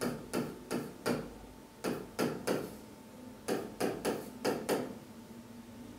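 A stylus pen tapping and scraping on the glass of an interactive display as capital letters are written: about a dozen short strokes in quick groups, stopping near the end.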